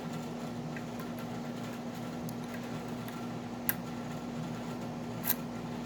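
Faint metallic clicks and scratching of a lock pick working the pins of a Wilka euro half cylinder under tension, with two sharper ticks in the second half, over a steady low hum.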